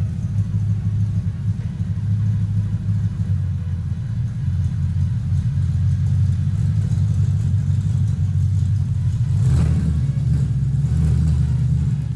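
Audi S5's 4.2-litre V8 engine running with a steady deep low note, swelling briefly about nine and a half seconds in.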